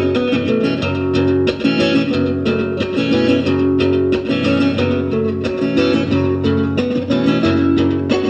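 Acoustic guitar being played: a continuous run of plucked notes and chords, several strings ringing together.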